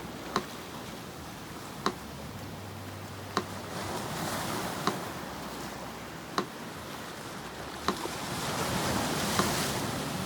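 A metronome ticking slowly and evenly, one click every second and a half, over the steady wash of sea surf, which swells twice as waves come in.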